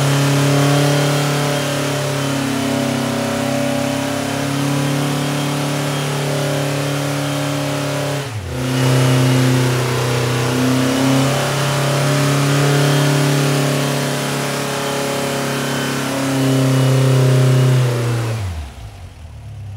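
Freshly built 1914cc VW air-cooled flat-four with dual 44 IDF Weber carburetors running on an engine dyno, holding a steady speed with small rises and falls and a brief dip about eight seconds in. Near the end it is shut off and winds down to a stop.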